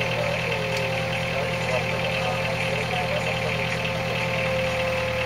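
Engine of a self-propelled orchard harvesting platform running steadily at low revs, with a steady whine over the engine note. Faint voices underneath.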